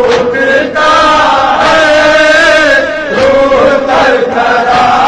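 Voices chanting an Urdu noha, a Shia lament, drawing out long held notes between lines of the recitation.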